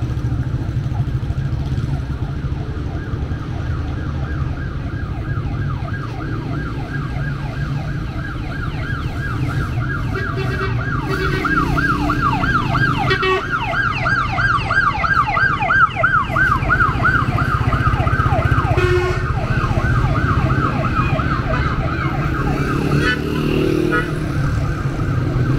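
Emergency vehicle siren in a fast yelp, rising and falling about four times a second, growing louder toward the middle and fading away near the end, over steady street traffic rumble.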